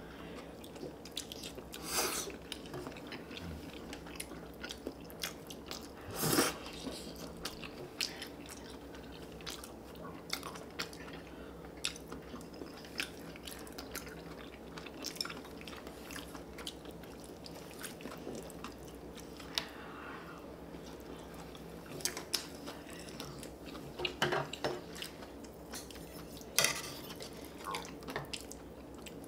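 Close-miked eating sounds: two people biting and chewing spicy stir-fried chicken, with many small clicks of chopsticks and spoons against bowls and the metal pan, and a few louder bites or scrapes, over a faint steady hum.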